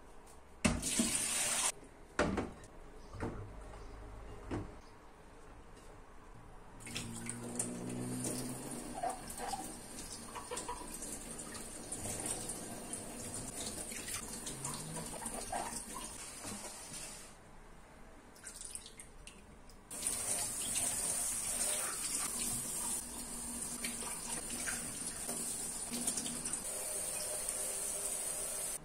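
Kitchen tap running into a steel sink while green bell peppers are rinsed by hand in a glass bowl of water, with splashing. A few sharp clatters of bowls and colanders come near the start, and the tap stops for a couple of seconds past the middle before running again.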